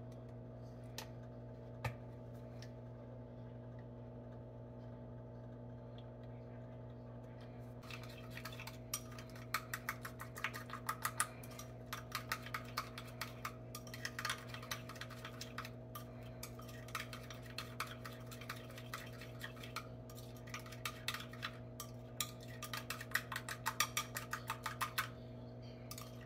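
A spoon stirring a sauce in a glass bowl, with rapid clinks and scrapes against the glass from about 8 seconds in until near the end, over a steady low hum.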